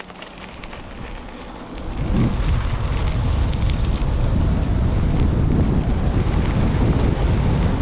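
Wind buffeting the microphone while riding an electric bike at speed, a low rumble that gets much louder about two seconds in and stays loud.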